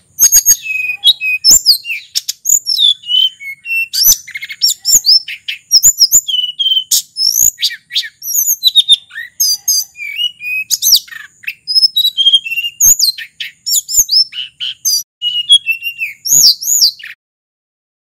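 Hill blue flycatcher (sulingan gunung) singing a long, unbroken run of varied high whistled phrases, with quick rising and falling notes. It stops shortly before the end.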